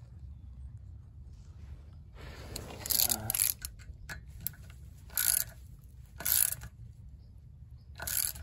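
Front wheel hub being fitted onto the spindle of an old Mercedes-Benz: a scraping slide of metal on metal about two seconds in, then three short metallic clinks.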